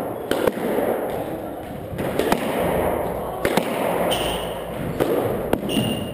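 Squash rally: several sharp smacks of the ball off racquets and the court walls, a second or more apart, ringing in the enclosed court, with short high squeaks of court shoes on the wooden floor.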